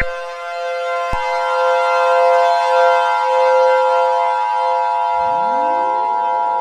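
Civil defense siren sounding several steady tones at once, with a click and a change in pitch about a second in. Near the end another siren winds up, its pitch rising to join the steady tone.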